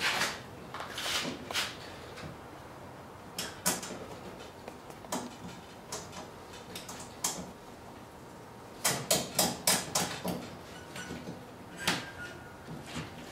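Scattered clicks and knocks of hands handling an aluminium frame and a white box, with a quick run of clicks about nine seconds in.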